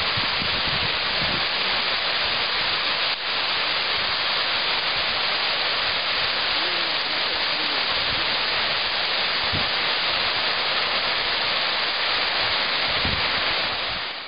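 Fountain jets and cascades of Peterhof's Grand Cascade and Samson fountain splashing into their pools: a steady, loud rush of falling water. It cuts off suddenly near the end.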